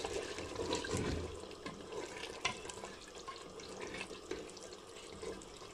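Boiled urad dal being stirred into thick lamb curry in an aluminium pressure cooker pot with a slotted spoon: a wet churning, with a few sharp clicks of the spoon against the pot. It is louder for the first couple of seconds, then softer.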